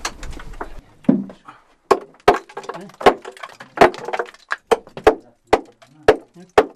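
Sharp knocks, about two a second, of a hand striking the calcite stalactites and flowstone of a limestone cave wall. The formations are hollow underneath.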